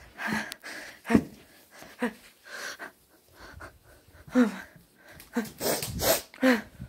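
A person breathing hard: loud, rasping breaths about once a second, some catching with a short voiced gasp.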